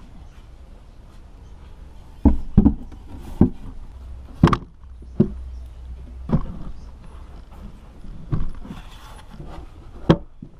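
Wooden knocks and clatter from a hinged wooden lid and boards being lifted, moved and set down: about eight sharp knocks, irregularly spaced, starting about two seconds in, over a low steady rumble.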